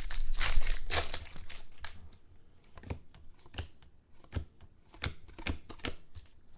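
Trading card pack wrappers crinkling and cards being handled for about two seconds, then a quieter run of light taps and clicks as the cards are sorted.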